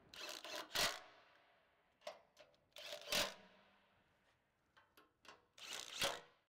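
A scattering of faint, short clicks and knocks with near quiet between them.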